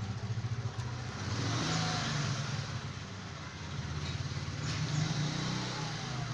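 A motor vehicle engine running and passing by, its hum swelling twice, about a second and a half in and again near the end.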